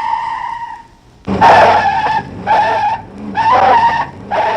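Tyres of Oldsmobile Toronado test cars squealing under hard driving. One long squeal fades out about a second in, then four shorter squeals follow in quick succession.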